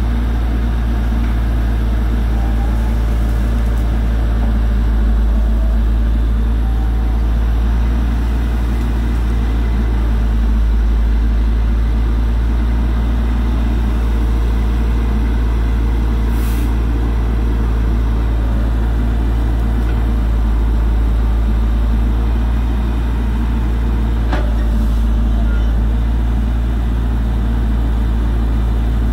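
Diesel engine of a grapple loader truck running steadily as a low, unbroken rumble while its knuckle-boom grapple works.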